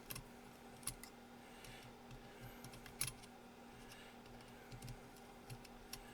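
Faint, scattered clicks and light metal taps of a screwdriver driving a small screw into an M1895 Nagant revolver, with the sharpest click about three seconds in.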